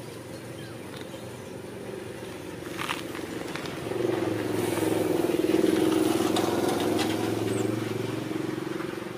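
A motor vehicle driving past: its engine hum grows louder from about four seconds in, peaks, then fades away near the end.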